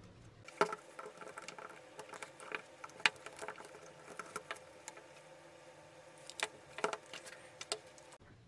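Irregular light clicks, taps and scrapes of small plastic and metal parts as the motor housing of an old Black & Decker corded drill is taken apart by hand, with sharper clicks about half a second and three seconds in.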